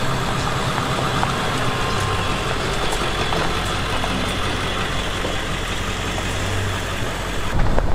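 A motor vehicle running steadily: a low engine hum under an even rush of road noise.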